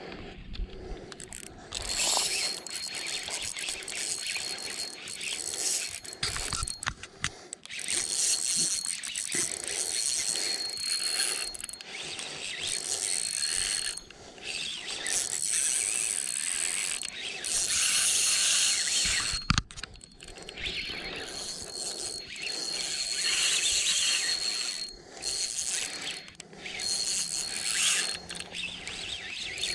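Spinning fishing reel ratcheting, in stretches of a few seconds with short pauses between.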